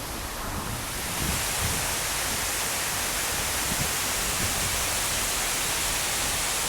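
Waterfall: falling water making a steady rushing hiss that grows louder about a second in, then holds.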